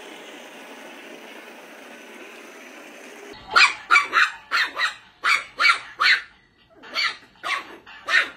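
A Lego toy train's electric motor runs with a steady hum for about three seconds. Then a small dog starts barking: about a dozen sharp, high-pitched yaps in quick clusters of two or three, aimed at a walking toy dog.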